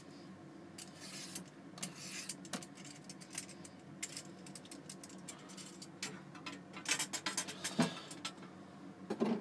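Carrot being peeled with a hand peeler: short, irregular scraping strokes of the blade along the carrot, over a steady low hum.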